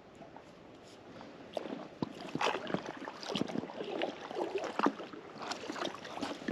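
Paddle splashing and dripping in the water, with irregular knocks and sloshing against an inflatable kayak, starting about a second and a half in.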